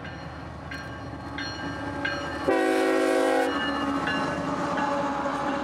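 A pair of CSX diesel locomotives running light past at close range, engines running, sounding the air horn once for about a second about halfway through; a steady low engine tone follows as they go by.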